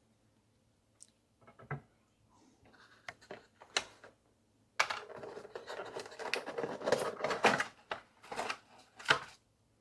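Handling noise from a knife's packaging being rummaged through: scattered clicks and scrapes, then a dense stretch of rustling and scraping from about five seconds in.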